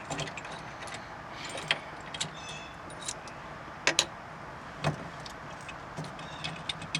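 Metal-on-metal clicking and clinking of hand tools on a steering wheel puller as its bolts are unscrewed by hand. There are irregular light clicks with a few brief ringing notes and two sharper clicks near the middle.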